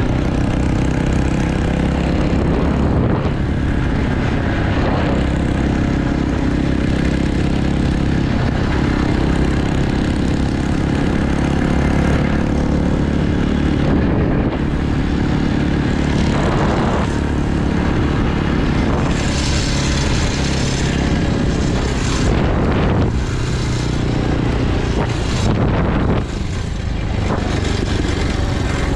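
Dirt bike engine running steadily while the bike is ridden along a street, its note rising and falling a little with the throttle.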